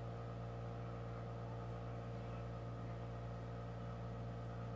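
Steady low electrical hum with a faint hiss and no distinct events: background room tone.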